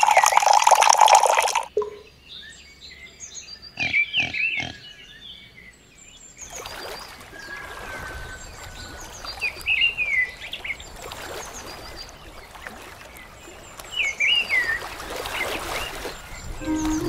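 Water pouring from a small metal bucket into a shallow trough for the first couple of seconds. Then quieter animal calls, followed by a steady faint watery noise with a few short chirps.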